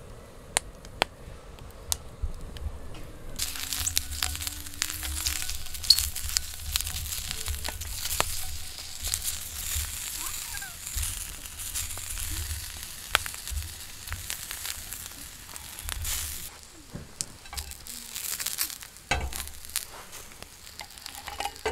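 Sausages sizzling in a hot black frying pan over a wood fire. The sizzle starts suddenly about three seconds in, as they go into the pan, and fades near the end, with sharp pops and crackles throughout.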